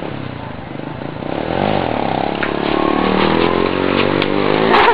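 Small underbone motorbike engine revving hard, its pitch climbing and getting louder as the throttle is held open and the bike rears into an uncontrolled wheelie. A brief loud clattering noise comes near the end.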